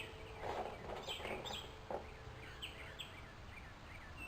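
Birds chirping in the background, many short quick chirps, with a couple of brief rustles in the first second and a half.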